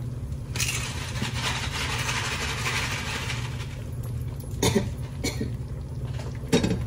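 Seasoning shaken from a shaker onto chips: a dry rustling hiss for about three seconds, then a few light clicks and clinks, over a steady low hum.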